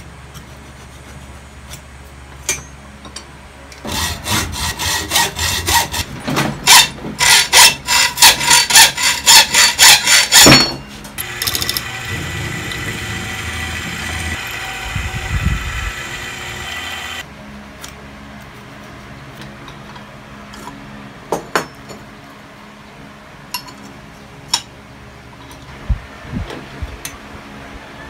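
About four seconds in, rapid, loud back-and-forth strokes of a hand tool working steel bar, about three a second, for some six seconds. Then a bench drill press runs steadily, drilling a hole through steel angle bar, and stops suddenly about seventeen seconds in. After that, only scattered light clicks and taps of marking tools on the metal.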